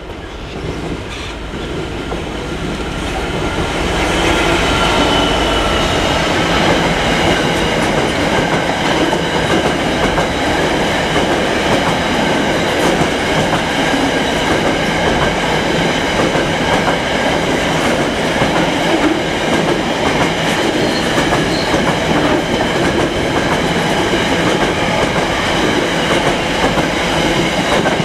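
Class 66 diesel-electric freight locomotive approaching and passing, growing louder over the first four seconds. It is followed by a long train of flat wagons carrying tank containers rolling steadily past, with wheel noise over the track.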